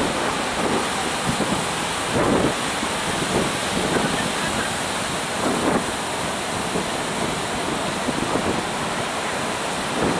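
Sea surf washing and breaking in a steady rush, with gusts of wind buffeting the microphone.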